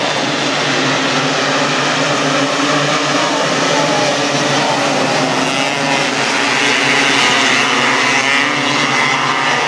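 A pack of 270-class micro sprint cars racing, several high-revving engines running together, swelling a little louder about seven seconds in.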